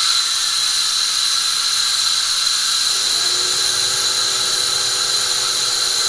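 Electric blower fan on a wood-pellet-fired steam boiler running with a steady high whine. About three seconds in, a second fan starts up, adding a low hum that rises briefly and then holds steady.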